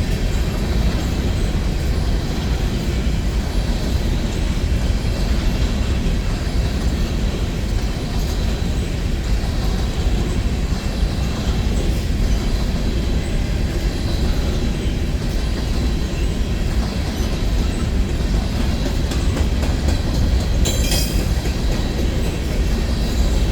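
Empty coal hopper cars of a freight train rolling past: a steady rumble of steel wheels on rail, with a brief high-pitched squeal near the end.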